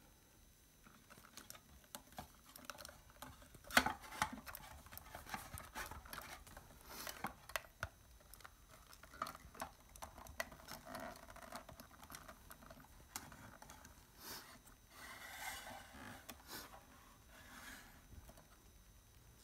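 Hands handling a plastic action figure: irregular light clicks, taps and scratchy rustles. There is a sharper click about four seconds in and a longer rustle around fifteen seconds in.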